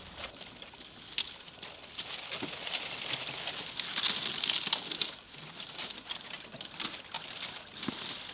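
Leaves and branches crackling and rustling as an African elephant bull browses, with scattered sharp snaps of twigs. The sound thickens in the middle.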